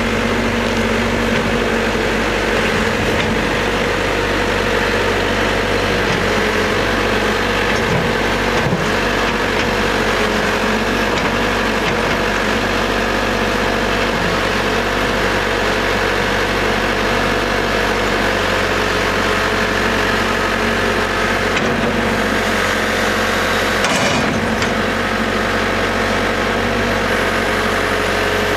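Caterpillar 420D backhoe loader's diesel engine idling steadily.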